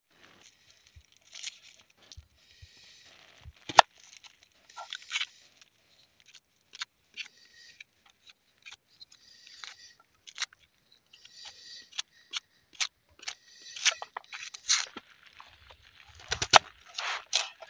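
Small knife peeling and cutting red onions on a wooden chopping board: the papery skin tears and crackles, with sharp taps of the blade on the board. The loudest taps come about four seconds in and near the end.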